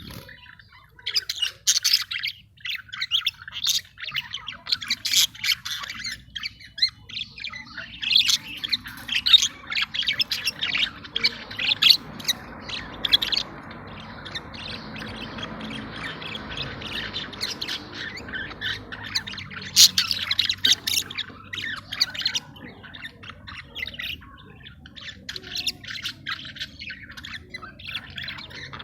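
A pair of budgerigars in breeding condition chattering, with many short, sharp chirps and calls.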